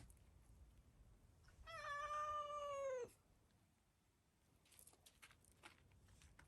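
A cat gives one long meow lasting about a second and a half, steady in pitch and then falling at the end, followed a couple of seconds later by a few faint clicks.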